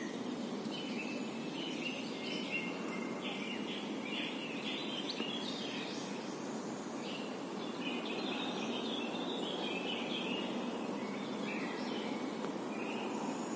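Small birds singing and chirping in quick, high trills, with a short lull midway, over a steady background hiss.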